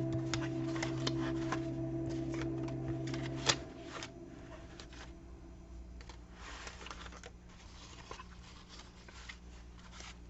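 Paper rustling and crackling as book pages and cut paper pieces are handled, in short irregular bursts. A held chord of background music ends about three and a half seconds in.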